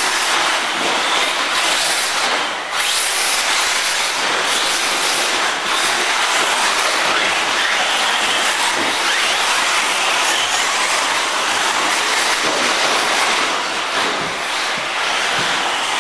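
1/8-scale electric brushless RC buggy driving on a dirt track: a steady, dense rush of motor and drivetrain whine and tyre noise, with faint whines rising and falling as the throttle changes. The sound drops briefly twice.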